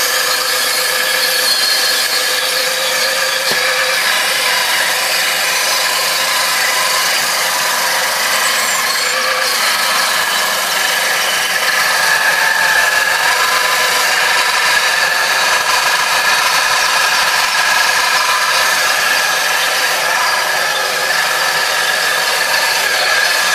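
Homemade table saw driven by a salvaged water-pump electric motor, running steadily as its circular blade rips a thin strip of wood: a continuous high whine with several steady tones, a little louder about halfway through.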